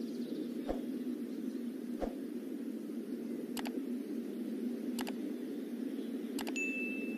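Subscribe-button animation sound effects: five sharp mouse clicks about every second and a half, then a short high notification-bell ding near the end. Under them runs a steady low rushing noise.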